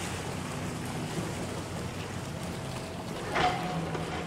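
Runaway motorboat's engine droning at speed across the water, with wind on the microphone. About three and a half seconds in, a sudden loud noise as the boat strikes the dock.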